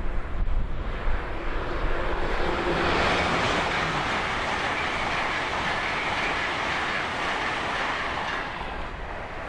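LNER Azuma high-speed electric-multiple-unit train passing at speed: the wheel-and-rail and air noise builds about a second in, holds steady while the coaches go by, then fades near the end as the tail passes. Wind buffets the microphone at the start.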